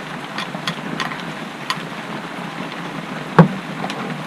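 Steady rain on a shed roof, with separate drops ticking now and then. A single sharp knock about three and a half seconds in stands out as the loudest sound.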